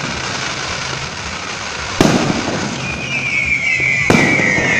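Aerial fireworks display: two sharp bangs of shells bursting, about two seconds in and again near the end, over continuous noise from the show. From about three seconds in, a long high whistle slides slightly down in pitch.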